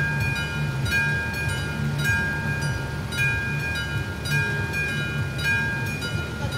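Czech level crossing's warning bell striking repeatedly, about once a second. Each strike is a bright ring that fades before the next, over a steady low rumble.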